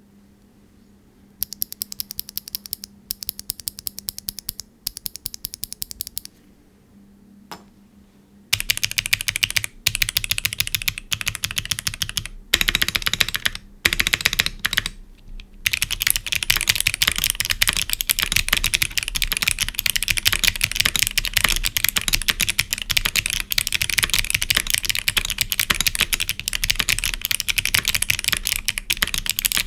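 Mechanical keyboard with NK Cream Clicky switches, aluminium plate and gasket mount, clicking as keys are pressed. First single keys are pressed one at a time in short runs; from about eight seconds in comes fast continuous typing.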